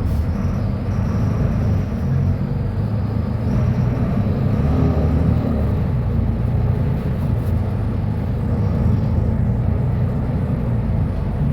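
Diesel engine of a Mercedes-Benz O500U city bus running with a steady low rumble.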